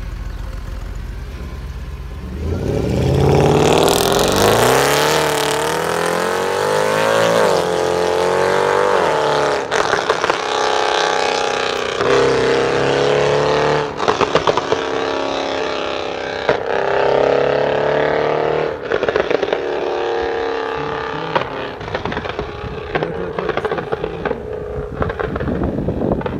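Tuned Mercedes-Benz C63 AMG (W204) V8 with a loud aftermarket exhaust, idling for a couple of seconds, then launching hard. The engine note climbs steeply in pitch. It then pulls up through several gears, with a brief break at each upshift, and thins out toward the end.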